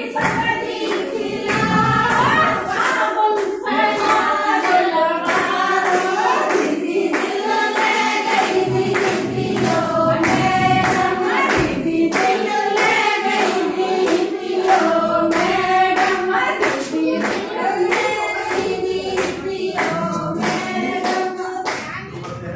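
A group of women singing together to steady, rhythmic hand clapping, as in an action song.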